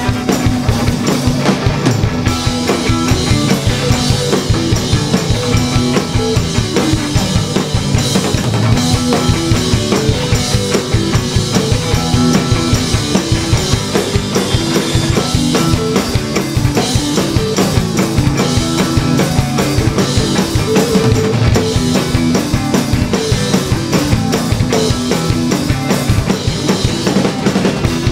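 Live rock band playing, with a drum kit keeping a steady beat under bass and other instruments.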